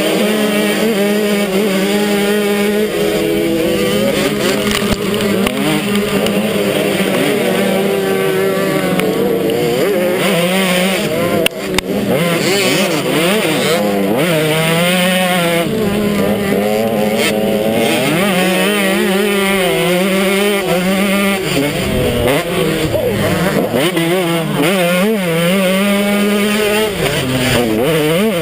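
KTM 150 XC two-stroke dirt bike engine under race throttle. Its note holds steady for stretches, then rises and falls repeatedly as the rider works the throttle and gears, with one sharp knock about halfway through.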